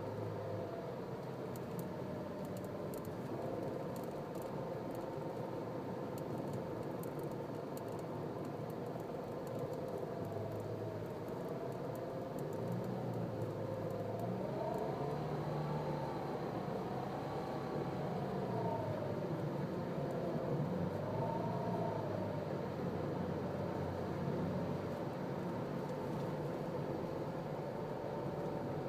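Nissan Cube's CVT whining while the car is driven, a thin tone that holds steady and then rises and falls in pitch several times over road and engine noise. It is the sudden abnormal transmission noise that appeared at about 51,000 km.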